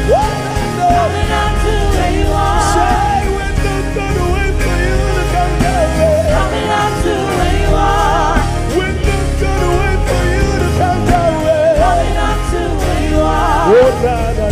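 Live gospel worship band playing: drum kit, bass and acoustic guitar under a singer whose melodic lines glide and waver with vibrato.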